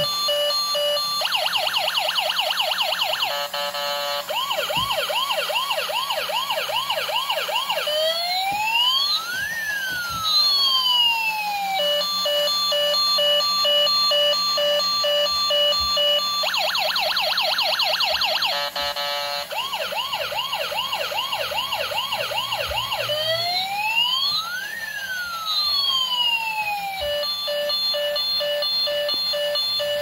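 Toy ambulance's electronic siren cycling through a set of tones: steady beeping, a fast yelp, a slower wail, then a long rise and fall. The sequence repeats about every 15 seconds.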